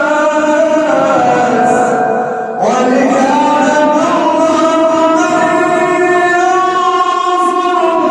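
A male reciter chanting the Quran in the melodic mujawwad style, holding long drawn-out notes. He takes a short breath about two and a half seconds in, then starts again with a rising glide into the next long held note.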